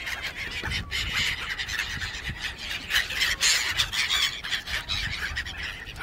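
A flock of gulls and pigeons crowding round for food: scattered gull calls over a steady rushing noise.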